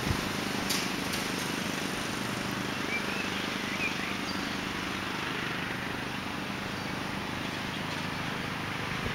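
Homemade ride-on mower's 14.5 hp Briggs & Stratton OHV engine running steadily out of sight, with a few faint bird chirps about three seconds in.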